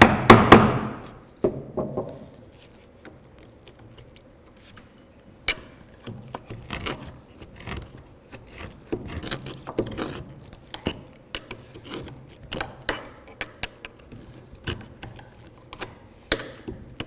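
A mortising chisel struck hard a couple of times right at the start, then light irregular scraping and clicking as the chisel pares and levers waste chips out of the bottom of a hand-cut mortise in wood.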